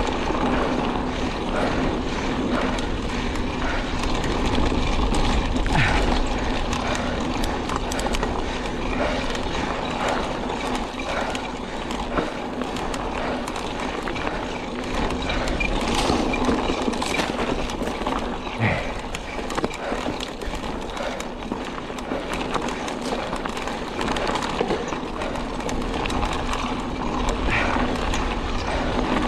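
A mountain bike riding over a dirt trail: tyres crunching and rolling on dirt and gravel, the bike clicking and rattling over bumps, under a steady rush of wind on the microphone.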